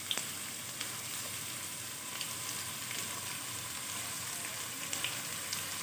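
Potato wedges frying in hot mustard oil in a pan: a steady sizzle with a few faint pops and crackles.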